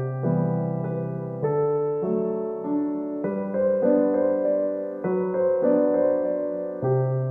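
Background music: a gentle piano melody with chords, the notes struck and left to fade, changing about every second.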